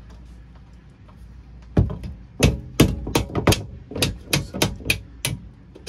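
Hammer striking a nipped-off 16-penny nail used as a punch, driving a hinge pin out of a boat port light's frame. About a dozen sharp metallic taps in an uneven run, starting about two seconds in.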